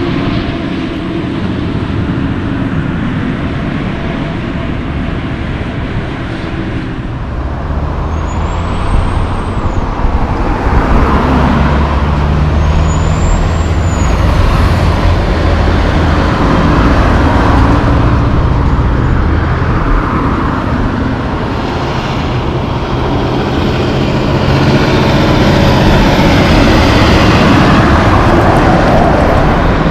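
Diesel logging trucks passing one after another on the road, their engines running under tyre noise and passing car traffic. It gets louder near the end as a truck loaded with logs passes close by.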